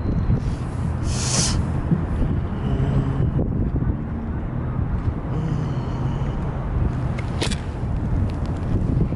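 Wind buffeting the microphone over a low, steady engine drone from boats on the water, with a brief hiss about a second in and a sharp click late on.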